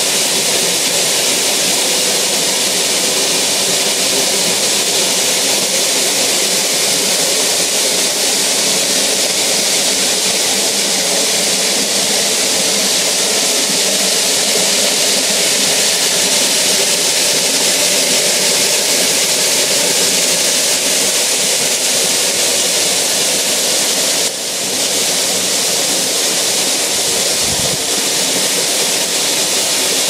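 Waterfall pouring over a rock ledge into a plunge pool: a loud, steady rush of falling water, dipping briefly in level about three-quarters of the way through.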